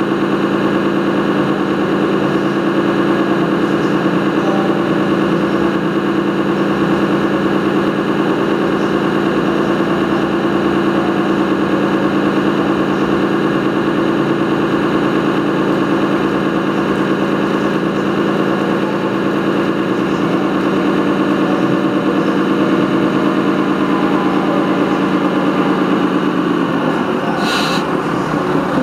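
Steady engine drone from a large 1:8-scale radio-controlled model vehicle on the course. About 27 seconds in its pitch changes and a short hiss sounds.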